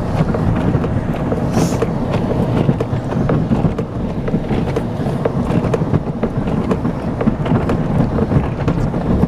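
Plow truck heard from inside its cab, engine running steadily under load with many small knocks and rattles as it plows snow.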